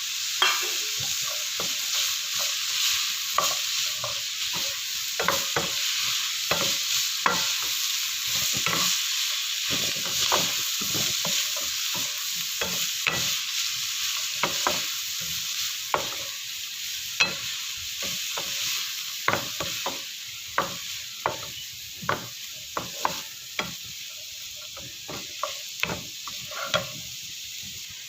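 Chopped cabbage, beans and carrot sizzling in a hot pan while a spatula stirs them, clacking and scraping against the pan at irregular moments. The sizzle eases off toward the end.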